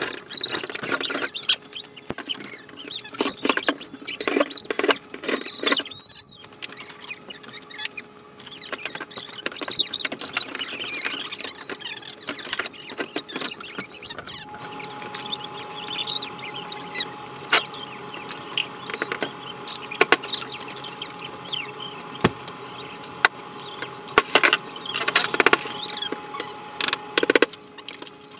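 Metal frame tubes of a pop-up ice shanty being handled and fitted together: repeated clicks and knocks with high squeaks, thickest in the first half.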